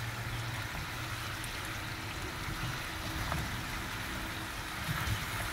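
Fried chicken pieces sizzling in a frying pan in a simmering fish-sauce glaze: a steady, even hiss.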